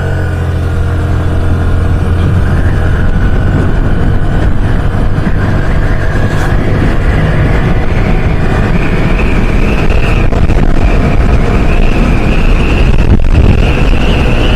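Honda Grazia 125's single-cylinder engine at full throttle, accelerating the scooter from a standstill to about 80 km/h. The engine note rises at the launch and then holds nearly steady, as a CVT scooter's does. Rushing wind noise builds with speed, and a high steady whine joins a little past halfway.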